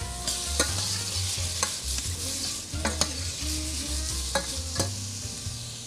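A spoon stirring diced food frying in oil in a stainless steel saucepan: a steady sizzle with about half a dozen sharp knocks of the spoon against the pan.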